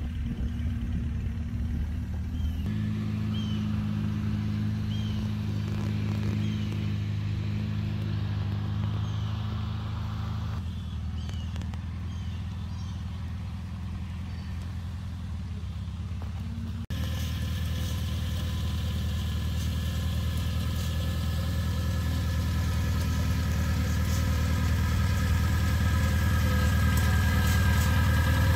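Farmall Cub tractor's small four-cylinder engine running steadily while pulling cultivator plows through a corn row. About two-thirds of the way in the sound jumps suddenly louder and fuller, as from closer by.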